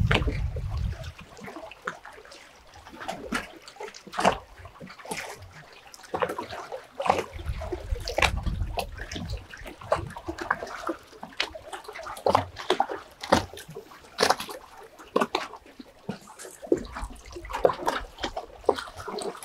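Dogs splashing about in water, with irregular splashes throughout.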